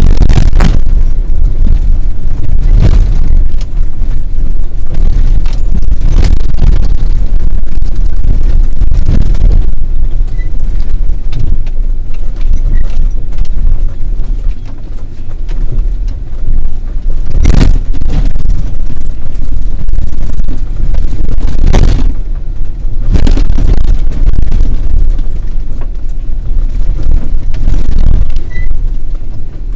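Off-road 4x4 driving over a rough desert dirt track: a loud, steady low rumble from the vehicle, broken every few seconds by sharp knocks as it jolts over bumps and ruts.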